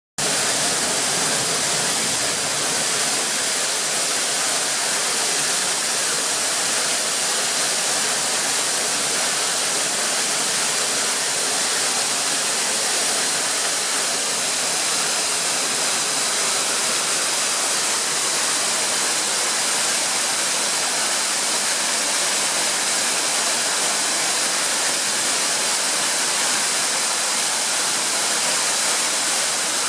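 A waterfall rushing steadily: an even, unbroken hiss of falling water, strongest in the high range.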